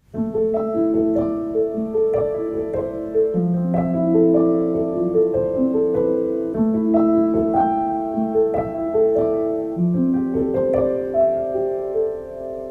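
Background music: a slow piano piece, a melody of overlapping notes, each struck and then held.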